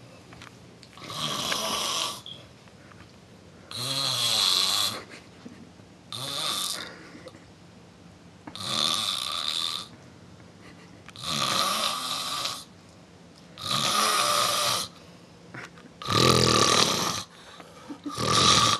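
Rhythmic snoring: about eight snores, one every two and a half seconds or so, each lasting about a second, with quiet gaps between them.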